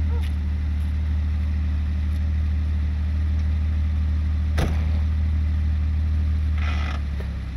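A vehicle engine idling steadily with a low, even hum, and a single sharp click about halfway through.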